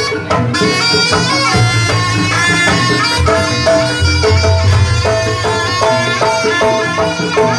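Jaranan band music: a slompret (Javanese shawm) playing a nasal, reedy melody over percussion and low sustained tones.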